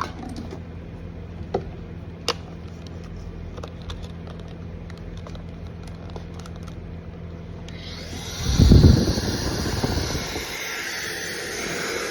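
A few light clicks, then a hair blow dryer switches on about eight seconds in and runs with a steady rush of air, with a loud low gust just after it starts.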